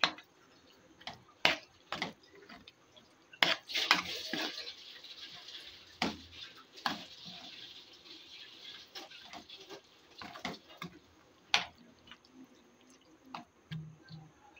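A steel spoon stirring thick tomato pizza sauce in a steel karahi, knocking and scraping against the pan at irregular moments, with a stretch of continuous scraping and stirring from about three to nine seconds in.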